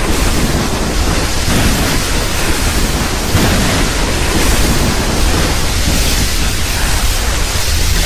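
Custom King Ghidorah monster sound effect: a loud, steady rushing noise with a deep rumble underneath and no pitched roar or call in it.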